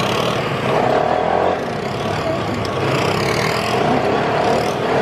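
Open off-road buggy's engine running while driving along a dirt track, mixed with steady wind noise across the microphone.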